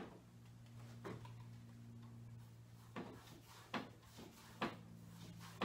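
A paintbrush working acrylic paint on a stretched canvas: a few faint, irregular taps and knocks, under a second or two apart, over a low steady hum.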